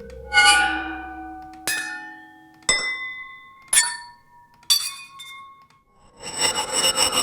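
AI-generated one-shot sound effects of resonant struck metal, glass, porcelain and copper, played one after another. There are five single hits about a second apart, each ringing with clear tones that die away. Near the end comes a longer, noisier shimmering crash.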